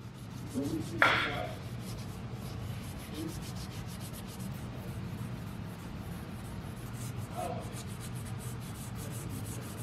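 Green Scotch-Brite pad rubbing oil into a muzzleloading rifle's wooden stock: a steady scratchy rubbing made of repeated strokes, with a brief sharp knock about a second in.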